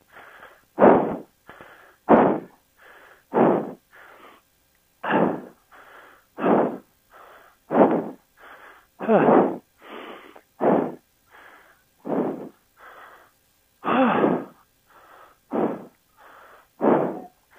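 A person breathing hard and fast close to the microphone, a steady run of loud, heavy breaths about every second and a half, each strong puff followed by a weaker one. It is the rider out of breath after the strain of the crossing and dropping the motorcycle.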